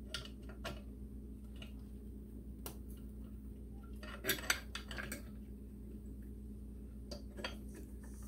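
Metal tools and engine parts clinking and tapping against each other in short, scattered knocks, the loudest pair about four and a half seconds in, over a steady low hum.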